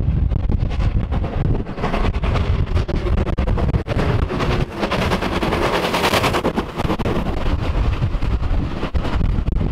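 LMS Ivatt 2MT tank locomotive working hard up the line, its exhaust a rapid run of sharp beats that grows loudest about five to six seconds in as it passes close by. After that comes the rumble of its coaches on the track.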